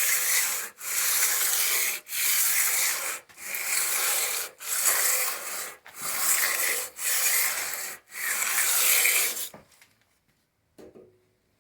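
Abrasive being rubbed along a metal lathe rail to polish it, in even back-and-forth strokes about one every 1.2 seconds. There are about eight strokes before the rubbing stops near the end, followed by a brief faint sound.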